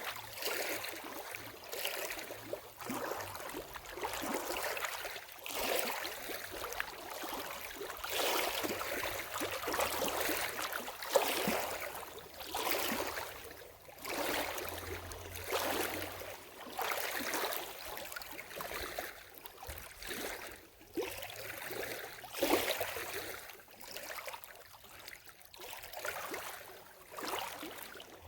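Lake water lapping and splashing at the shoreline, in uneven swells every second or two.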